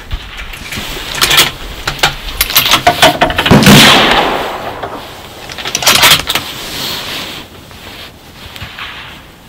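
Handling noise at a shooting bench: a series of sharp clicks and rustling as the shooter's hands work at the bolt-action rifle, with a longer, louder rustle near the middle and another cluster of clicks a couple of seconds later.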